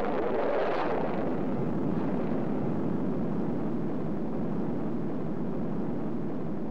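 Liquid-fuel rocket engine static test firing: a steady, loud, dense rushing noise, slightly brighter in the first second.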